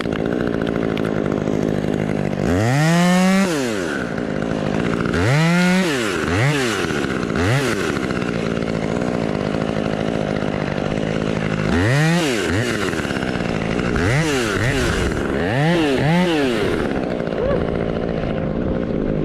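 Chainsaw idling steadily and revved up in about eight short blips, each rising and falling back to idle, while small limbs are cut out of a fir tree.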